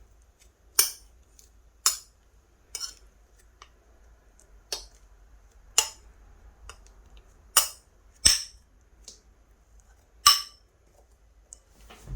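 Clay-blended slime being squeezed and worked by hand, giving about eight sharp clicking pops at irregular intervals of roughly a second.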